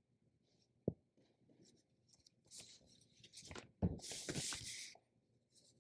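Sheets of paper rustling as they are handled, a few light rustles and then a denser rustle lasting about a second, after a single soft tap about a second in.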